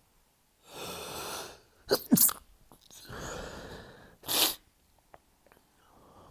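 Stifled sneezes in a sneezing fit: a noisy breath in, two quick held-back sneezes about two seconds in, another noisy breath, then a third stifled sneeze.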